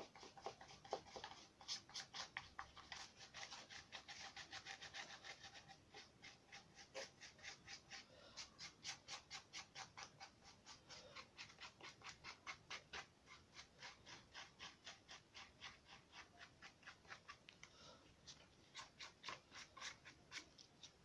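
Paintbrush stroking back and forth on a paper model, a soft, fast, even scratching of about four strokes a second.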